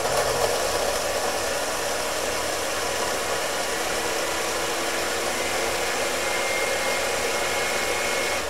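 Countertop blender on its liquefy setting, pureeing cooked carrot and sweet potato pie filling with a steady whir, switched off at the very end.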